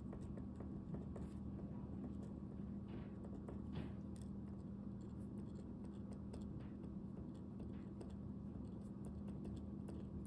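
Paper Mate InkJoy ballpoint pen writing on a paper worksheet: faint, irregular scratching strokes of handwriting over a steady low hum.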